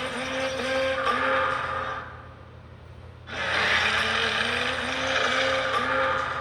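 Rhinox character sound effect, played twice: a rough, noisy sound with a wobbling low tone under it, about three seconds long. The first ends about two seconds in, and the same sound starts again about a second later.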